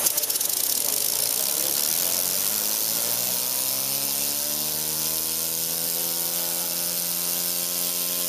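Small model pneumatic engine with a metal flywheel, driven by compressed air from a hand-held blow gun: a steady hiss of air, joined about three seconds in by a hum that rises in pitch as the engine picks up speed, then holds steady.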